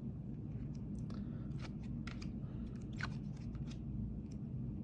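Panini Prizm basketball trading cards being handled and slid off the stack, making light, scattered clicks and scrapes over a steady low hum.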